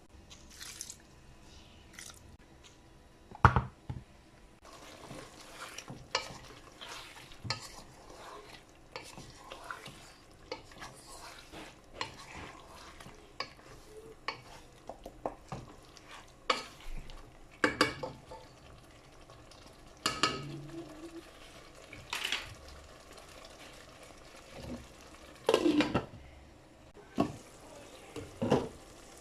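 Wooden spatula stirring chicken curry in a non-stick pan: a scattered string of sharp knocks and scrapes against the pan.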